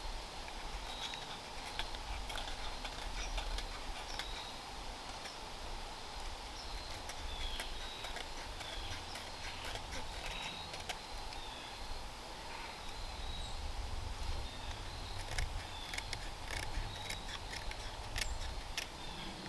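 Back of a Swiss Army knife's saw blade scraping a piece of fatwood in repeated short strokes, shaving off fine resinous tinder dust; the strokes come thicker near the end. Birds chirp in the background.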